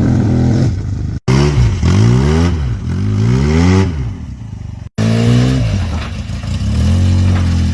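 Vehicle engine revving repeatedly, its pitch climbing and dropping again several times, in three short stretches with abrupt cuts about a second in and near the middle.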